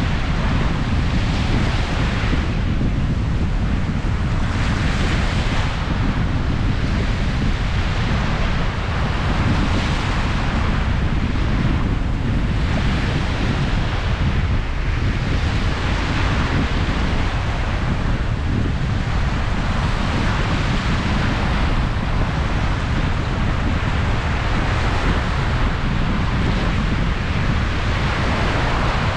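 Sea waves washing in, swelling in a rush of hiss every few seconds over a continuous surf, with a heavy rumble of wind on the microphone.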